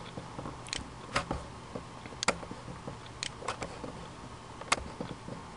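Computer mouse button clicks: about six sharp single clicks at uneven intervals, over a faint low steady hum.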